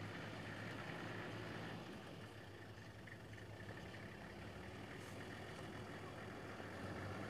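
Vehicle engine idling: a faint, low, steady hum.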